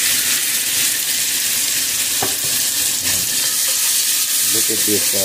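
Chopped onions sizzling in oil in a nonstick frying pan as a splash of shrimp stock goes in and a wooden spatula stirs them. There is one light knock about two seconds in.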